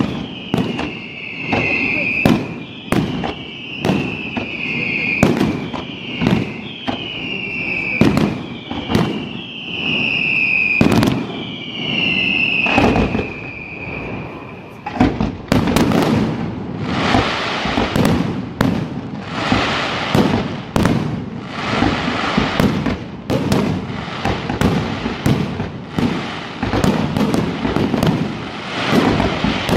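Aerial fireworks display. For about the first half, a string of whistles, each falling in pitch and lasting about a second, comes roughly every second and a half among sharp bangs. From about halfway it turns into a dense crackling hiss with rapid bangs as shells burst and comets fire.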